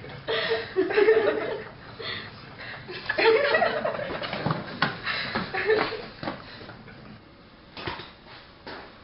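A young man chuckling and giggling to himself under his breath, in a small room; it dies down after about six seconds.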